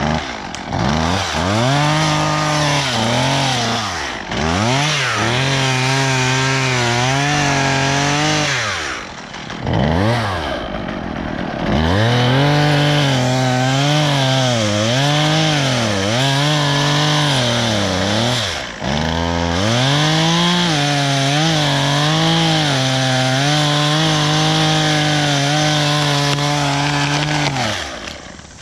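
Chainsaw cutting wood, its engine note rising and dipping under load in several long runs. It falls back briefly a few times between runs and stops near the end.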